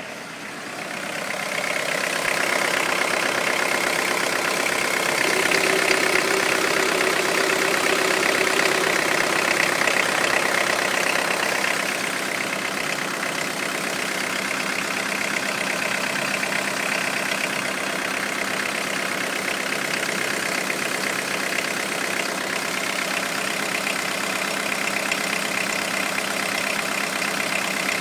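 Citroën Evasion 1.9 TD DHX four-cylinder turbodiesel engine idling. It grows louder over the first couple of seconds, then eases slightly about twelve seconds in and runs on steadily.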